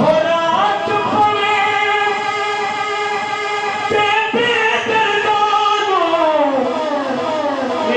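A man singing a naat into a microphone, holding long drawn-out notes, the melody sliding slowly downward over the last two seconds.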